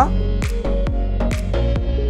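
Electronic background music with a steady drum beat over a sustained bass.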